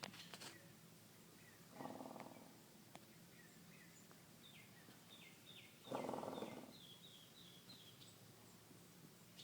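Horse snoring in its sleep: two rasping snores, each under a second long, about four seconds apart. A small bird chirps a quick run of short descending notes between and after them.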